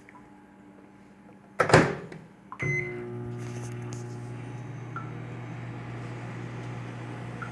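Microwave oven door banged shut, a short keypad beep, and a clunk as the oven starts. It then runs with a steady low hum.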